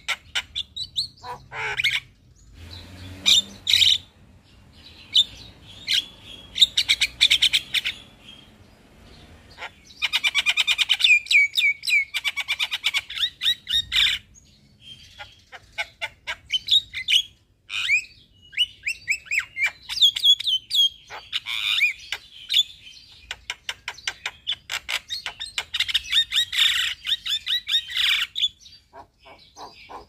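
Javan myna singing a long, varied chattering song: fast runs of sharp, rapid notes and squawky calls, broken by short pauses.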